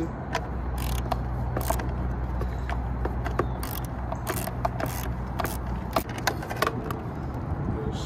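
Hand tools clicking and clinking at irregular intervals while a bolt on the motorcycle's rear fender assembly is worked loose, over a steady low hum.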